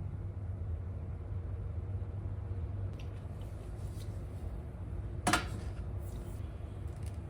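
Kitchen range hood exhaust fan running with a steady low hum. There are a few faint ticks, and one short clink a little past five seconds in.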